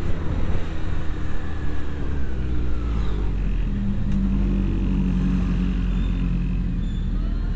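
Honda CB1100F inline-four engine running as the motorcycle rides at low speed, heard from the rider's seat. From about four seconds in the engine settles into a steadier note.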